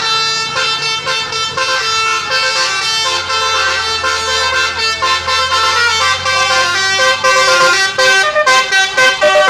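Telolet 'basuri' musical air horn playing a melody of changing notes, the notes getting quicker and choppier near the end. A low steady drone runs underneath until about seven seconds in.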